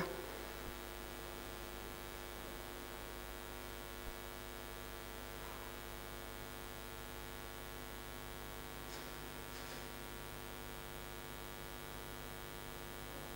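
Steady electrical mains hum from the sound system in an otherwise silent church, with a few faint brief sounds around the middle.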